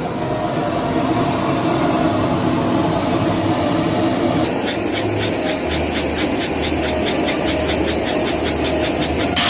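Helicopter turbine engine and rotor running, a steady mechanical noise; about four and a half seconds in a high whine and a fast, regular beat of the rotor blades come in.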